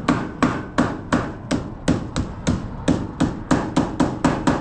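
Hand hammer striking the aluminum skin along the edge of a camper's roof, in steady rapid blows about three a second.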